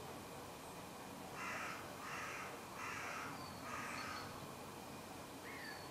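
A crow cawing four times in a row, harsh calls about three-quarters of a second apart, with faint small-bird chirps in the background.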